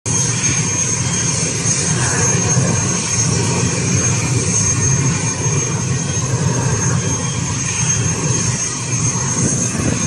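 Twin-engine jet airliner on low approach: steady jet engine noise with a thin, steady high whine.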